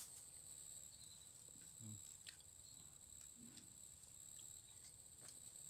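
Faint, steady high-pitched chirring of insects, with a few faint soft ticks.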